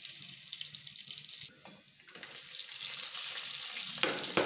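Hot oil sizzling in a kadai, growing louder about two seconds in as chopped onion fries in it, with a couple of knocks near the end.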